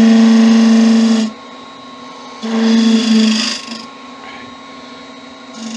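Turning gouge cutting spalted beech on a spinning wood lathe. There are two long cuts and a short one near the end, each a loud buzzing tone with a hiss of shavings, and the lathe runs steadily between them.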